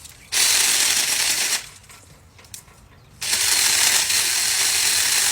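Battery-powered mini chainsaw running in two bursts while cutting through a branch: a short burst of about a second, a pause, then a longer burst near the end.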